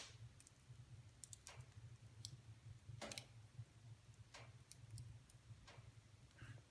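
Faint wood fire in a fireplace crackling, with irregular snaps and pops about one or two a second over a steady low hum. The sharpest pop comes right at the start.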